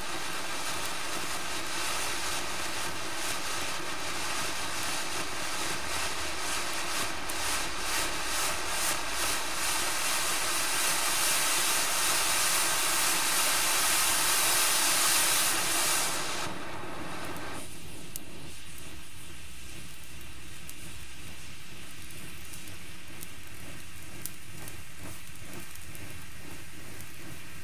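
Firework fountain spraying sparks with a loud, steady hiss, fluttering rapidly in the middle. The hiss dies away fairly suddenly about sixteen to eighteen seconds in, leaving a quieter hiss with faint scattered crackles.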